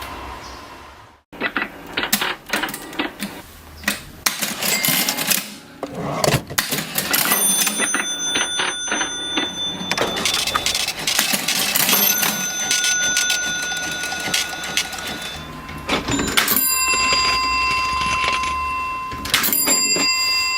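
Vintage mechanical cash register being worked: keys and levers clatter and click, and its bell rings several times, each ring holding and fading. A short break to silence about a second in.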